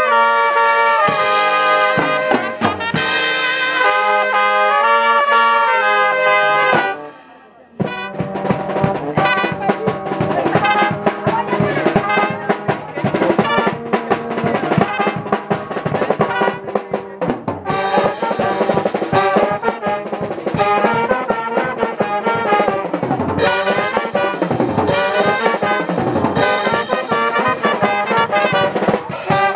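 Small street band of trumpets with drums and cymbals playing a tune. The brass holds long notes at first, stops briefly about seven seconds in, then the whole band comes back in with a steady drumbeat under the trumpets.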